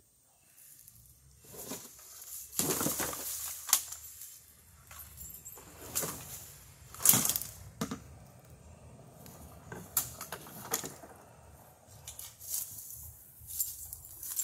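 Dry bamboo stalks, leaves and brush rustling and crackling as a person pushes through a thicket on foot, with irregular sharp snaps and cracks.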